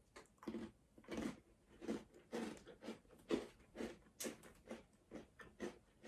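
A person chewing a bite of gluten-free Double Stuf Oreo chocolate wafer, faint short chewing sounds about twice a second.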